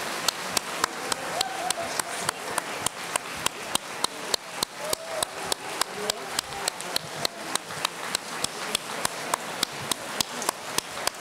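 A crowd clapping together in a steady rhythm, about three claps a second, with voices calling and chattering underneath.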